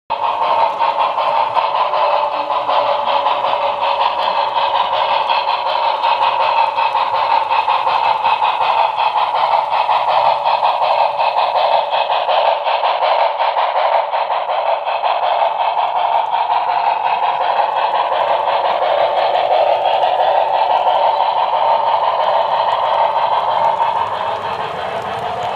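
Model Santa Fe 4-6-4 steam locomotive and its freight cars running past on layout track: a steady whirring clatter of motor, gearing and small wheels rolling on the rails.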